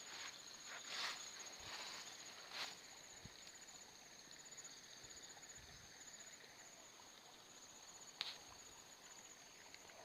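Faint, steady high-pitched trilling of insects, with a few brief rustles in the first few seconds and one more near the end.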